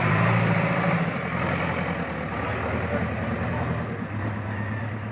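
JCB backhoe loader's diesel engine running steadily as the machine drives past close by.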